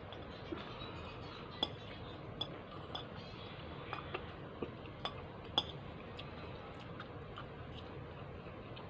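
Metal fork clinking and scraping against a plate as spaghetti is twirled and eaten: light, irregular clicks about one every half second to a second.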